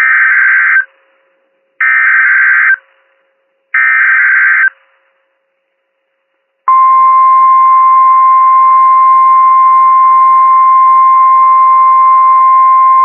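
NOAA Weather Radio Emergency Alert System activation: three short bursts of SAME digital header data, each about a second long, then after a pause the steady 1050 Hz weather radio warning alarm tone, starting about seven seconds in. Here it announces a hurricane warning.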